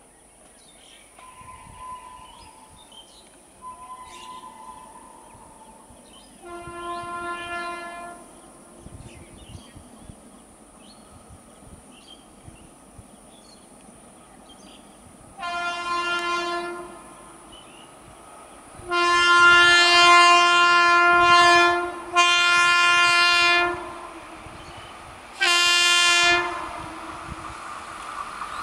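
WAP-5 electric locomotive sounding its horn five times as it approaches, each blast a steady chord and each louder than the last. Two single blasts come several seconds apart, then two longer ones back to back and a final short one. The train's running noise rises near the end.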